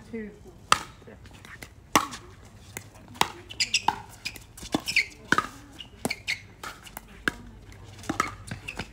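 Pickleball rally: paddles striking a hard plastic ball, a run of sharp pops about once a second as the ball goes back and forth.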